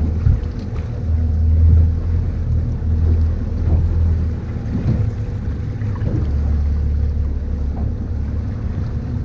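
Fishing boat's engine running at a steady low hum.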